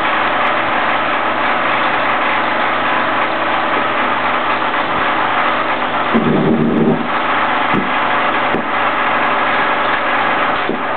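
Steady hiss and mechanical hum of 16mm film playback after the commercial's soundtrack has ended, with a brief lower rumble about six seconds in.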